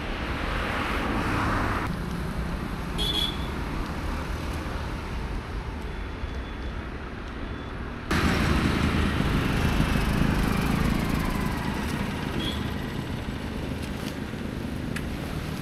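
Road traffic on a highway: vehicle engines and tyre noise passing steadily, suddenly louder about halfway through.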